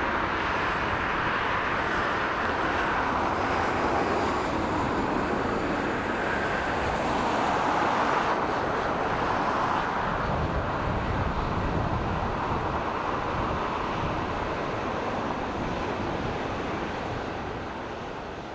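Airbus A350-900 jet engines (Rolls-Royce Trent XWB) at takeoff thrust as the airliner lifts off and climbs away: a steady rushing jet noise that fades over the last few seconds.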